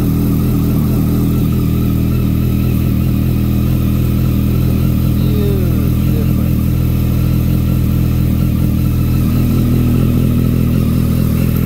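Yamaha MT-09's three-cylinder engine idling steadily through a new aftermarket muffler, warming up after a cold start.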